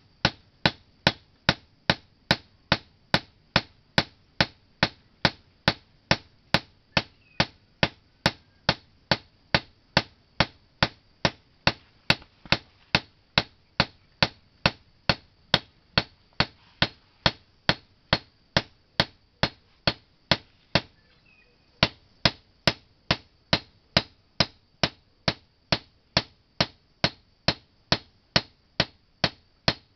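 Blacksmith's hand hammer striking a sickle blade on an anvil in a steady, even rhythm of about two ringing blows a second, with one brief pause about two-thirds of the way through.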